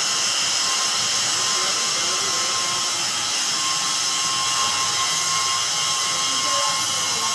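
Steady high hiss with a thin, constant whine from a running submerged arc (SAW) welding machine setup, holding an even level without change.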